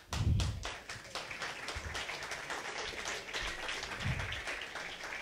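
Audience applauding steadily in a small hall, with a dull low thump at the start and another about four seconds in.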